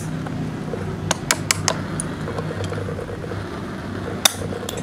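Steel pincer pliers clicking as they grip and cut the lead lugs of lead-acid battery plates: four quick clicks about a second in, then one sharp click near the end, over a steady background rumble.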